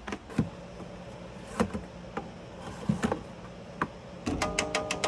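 Scattered light clicks and knocks. About four seconds in, music with a fast ticking beat and held notes starts.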